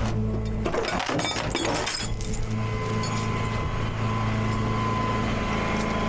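Tow truck engine running steadily, with sharp metallic clinking and rattling through the first two seconds. A steady high whine joins about two and a half seconds in.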